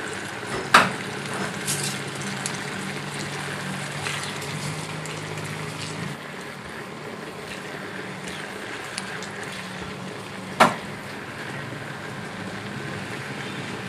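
Tofu and mixed vegetables in tomato sauce simmering in a nonstick pan, stirred with a silicone spoon. A low hum stops about six seconds in, and two sharp knocks stand out, one near the start and one about ten seconds in.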